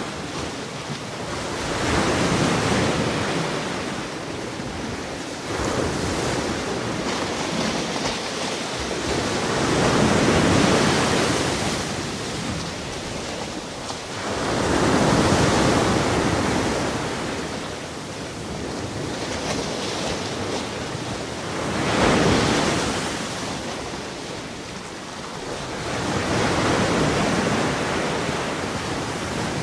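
Ocean surf: waves rolling in and breaking on a shore. The sound swells and fades five times, every five to eight seconds.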